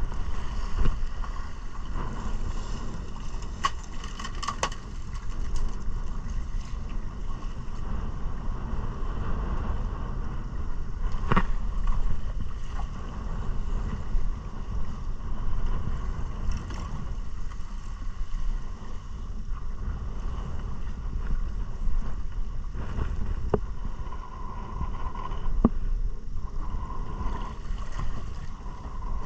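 Outboard motor of a small fishing boat running steadily under way, mixed with wind on the microphone and water rushing past the hull. A few brief sharp knocks sound over it.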